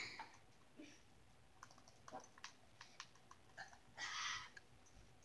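Near silence, broken by scattered faint clicks and a brief soft hiss about four seconds in.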